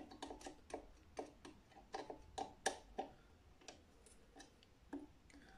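Small screwdriver working a humbucker's height-adjustment screw: a run of light, irregular clicks, about three a second, thinning out after about three seconds.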